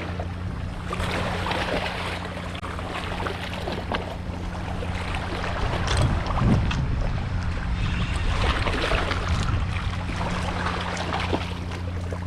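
A boat's engine running with a steady low hum, under rushing wind and water noise that swells and fades.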